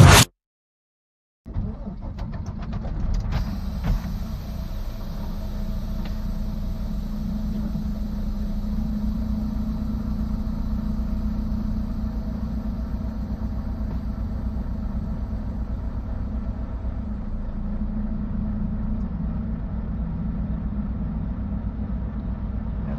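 A vehicle engine running steadily, a low rumble that starts after a second and a half of silence, with a few faint clicks about three to four seconds in.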